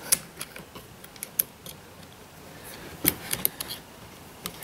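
Scattered light clicks and taps of small metal and plastic parts being handled as the throttle linkage and kill switch of a Stihl MS210 chainsaw are fitted back together by hand, with a quick cluster of clicks about three seconds in.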